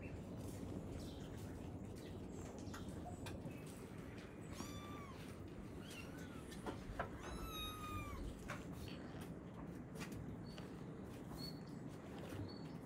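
A kitten meowing twice, a short meow about five seconds in and a longer one of about a second shortly after.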